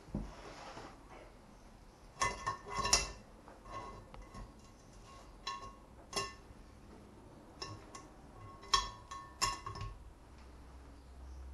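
Metal spoon clinking and scraping against a metal mesh strainer set in a pan of spinach and prawn filling, about a dozen irregular ringing clinks.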